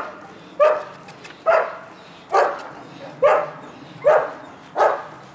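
Dog barking in a run of sharp, high-pitched barks, evenly spaced at a little over one a second.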